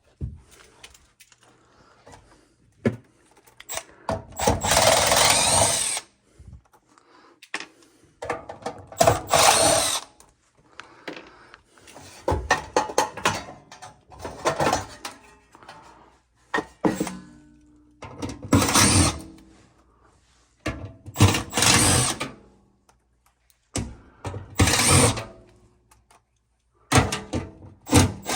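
Power drill running in short bursts, about eight of them, each lasting one to two seconds with pauses between.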